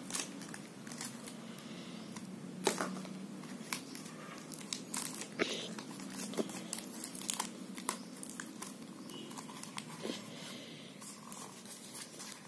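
Corrugated cardboard pieces being handled and pressed together by hand: quiet rustling and scraping with scattered small clicks and taps.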